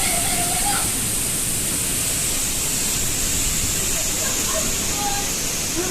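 Steady rushing noise of a strong windstorm, the wind blowing hard across the microphone.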